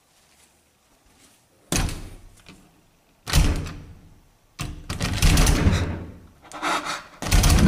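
A door being tugged and rattled by its round metal knob, knocking against its frame in four or so sudden loud bursts, some lasting about a second. The door does not give.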